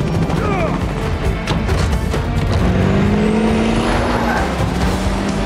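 Action-film soundtrack: a vehicle engine running and rising gently in pitch, mixed under a dramatic music score.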